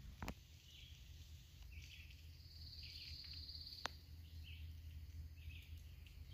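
Faint woodland ambience: short bird calls repeating about once a second, and a single high, steady trill lasting about a second and a half near the middle. Under them a low rumble, with two sharp clicks.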